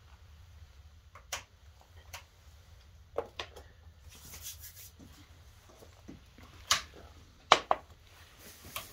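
Glasses being set down on a wooden table: a handful of sharp knocks and clinks, the loudest two close together near the end, over a low steady hum.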